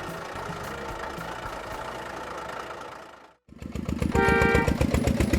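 Heavy vehicle engine sound. It runs steadily for about three seconds and cuts out briefly. It then comes back as a louder, pulsing idle of about eight beats a second, with a short horn-like tone just after it restarts.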